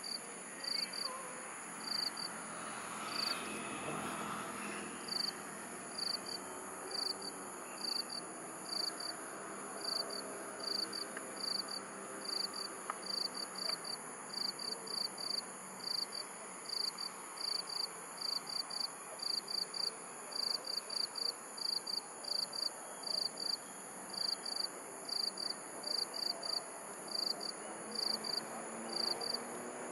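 Crickets chirping in short high-pitched pulses, several a second in uneven groups, over a continuous high-pitched ringing.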